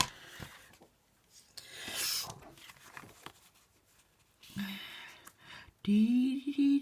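Card stock being handled and trimmed on a paper cutter: a short scraping slide about two seconds in, with soft paper rustles around it.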